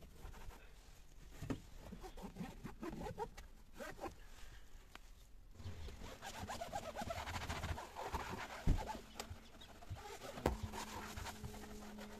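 Microfibre cloth wiping the textured plastic interior trim of a Citroen Berlingo, with short squeaks and a few light knocks; a steady low hum comes in near the end.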